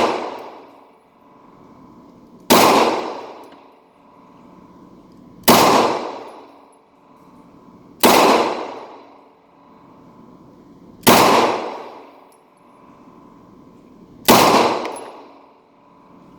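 Pistol fired five times in slow, deliberate succession, about two and a half to three seconds between shots, each sharp report followed by an echo dying away over a second or so.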